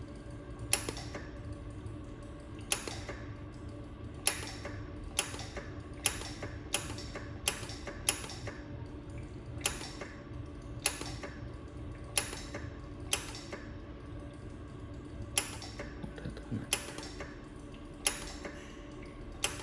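Xenon flash-lamp jewelry laser welder firing single pulses: a sharp click with each shot, about seventeen at irregular intervals, over the machine's steady hum.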